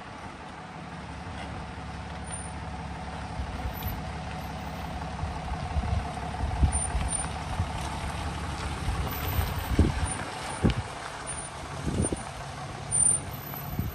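A pickup truck carrying a camper creeps closer on a wet, muddy road, its engine running low and getting louder as it nears. A few sharp low thumps come in the last few seconds.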